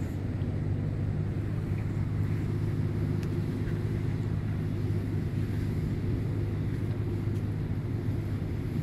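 Steady low drone of a cruise ship's machinery, several low pitches held without a break, over a light rush of wind and sea.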